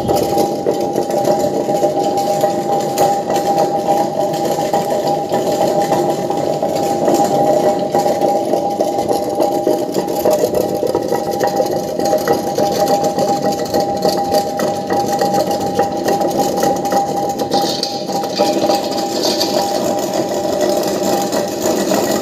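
Commercial tilting wet grinder running steadily, its motor humming on one steady tone over a dense churning rumble.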